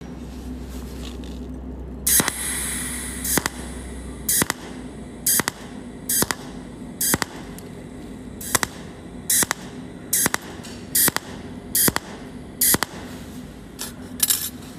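Cold welding machine firing short arc pulses from its tungsten needle while filler wire is fed onto a metal ring: a longer hiss about two seconds in, then a string of short, sharp zaps about one a second. A low hum sounds under the first four seconds and then stops.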